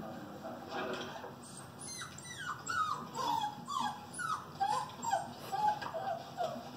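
A dog whimpering and whining in a rapid series of short calls, each falling in pitch, about three a second from about two seconds in.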